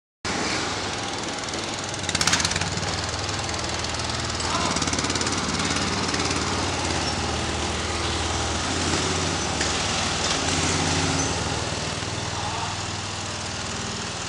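Riding lawn mower's small engine running, its pitch shifting a few times as it works, with a brief clatter about two seconds in.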